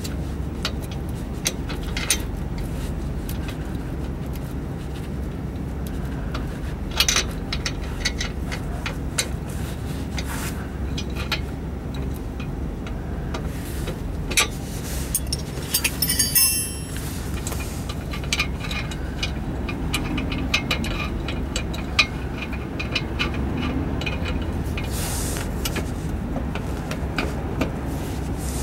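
Wrench working the bolts on a stainless exhaust flange under a car: scattered metallic clicks and clinks, with a quick run of clicks about sixteen seconds in, over a steady low hum.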